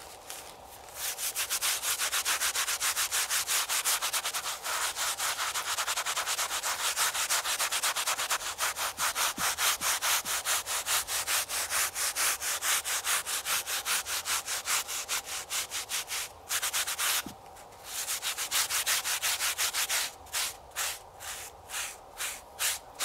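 A mesh scrubbing pad scraping back and forth over a carved stone gravestone in quick, steady strokes, scrubbing grime and moss off the lettering. There are two short pauses near the end, and after them the strokes come slower and further apart.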